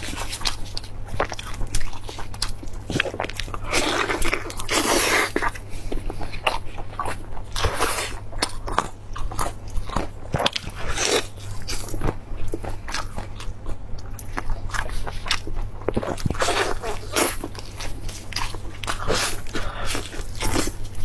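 Close-up eating: irregular biting and crunching with wet mouth clicks as food is chewed, over a steady low hum.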